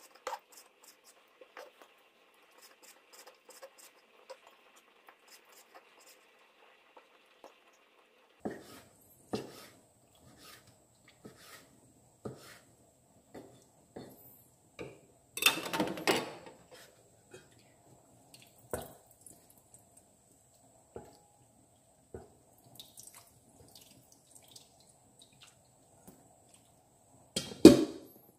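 Kitchen knife tapping and scraping on a wooden cutting board while soft, wet sea pineapple flesh is cut and moved, with scattered light knocks. A louder clatter comes about halfway through, and a sharp knock comes near the end.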